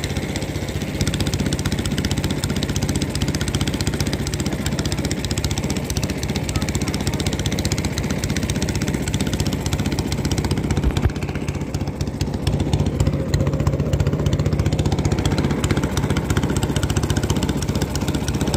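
Engine of a small wooden river boat running steadily while under way, a dense, even low chugging.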